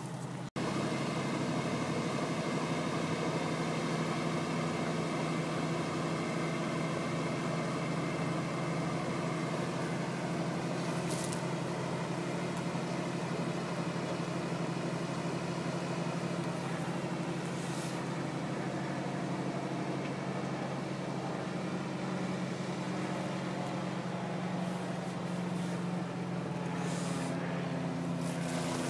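A motor vehicle engine running at a steady pitch, a constant low hum with no revving.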